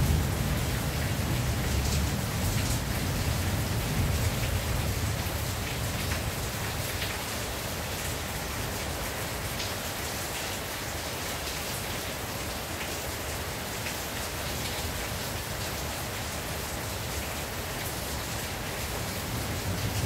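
Steady rain drumming on a tin roof, with many small drop ticks through an even hiss. A low rumble of distant thunder fades away over the first few seconds, and another starts to build at the very end.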